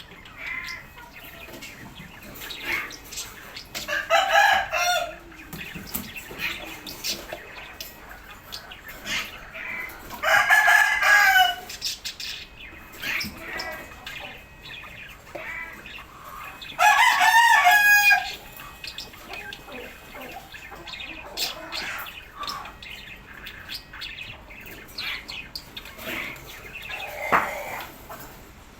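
Birds calling: three loud, drawn-out calls, each about a second long and roughly six seconds apart, with fainter chirps and short calls between them.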